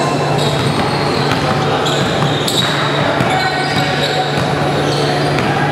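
Basketball game play on a hardwood gym court: the ball bouncing and sneakers squeaking, over a steady low hum.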